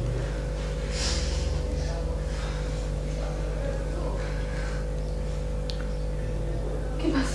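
Soft breaths and sniffs, one a little louder near the end, over a steady low hum.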